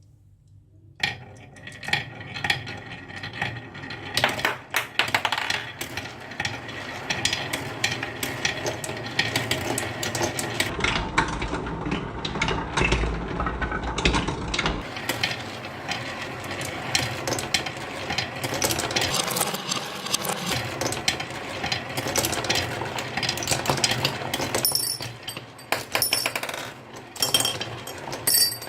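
Marbles rolling and clattering down a wooden HABA marble run. A dense, continuous stream of clicks and rattles starts about a second in, with a few ringing clinks near the end.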